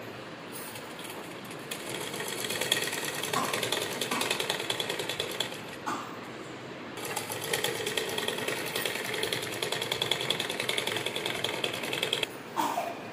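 Black straight-stitch sewing machine running fast, sewing down a folded hem: a dense, even ticking of the needle mechanism in two runs of about four and five seconds, with a short pause between them. A knock comes near the end.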